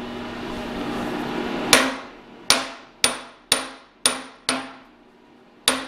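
Hammer tapping a workpiece down in a milling-machine vise to seat it on a parallel: seven sharp taps about half a second apart, each with a brief metallic ring, the last after a short pause.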